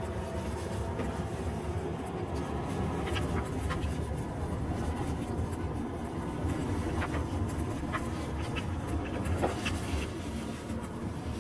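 Car driving, heard from inside the cabin: a steady low rumble of engine and tyres on the road, with scattered light clicks and rattles.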